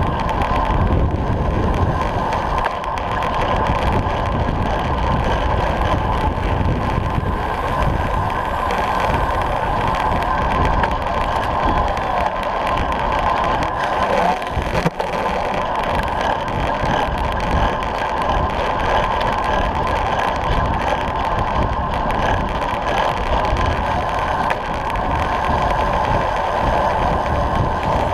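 Steady rush of wind over a bicycle-mounted action camera, with road-bike tyres rolling on tarmac at racing speed: a continuous low, noisy rumble.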